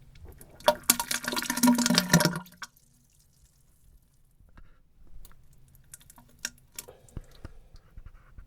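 Diarrhea sound effect: a loud, wet, crackling splatter of liquid lasting about two seconds, then a few fainter splashes and drips later on.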